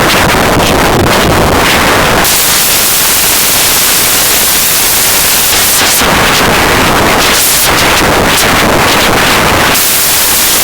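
Digital glitch sound effect: loud, harsh static and noise that shifts abruptly between stuttering, flickering stretches and smoother hiss every second or two.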